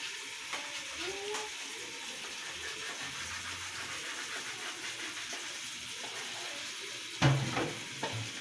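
Water running steadily from a tap into a sink, with one loud knock near the end.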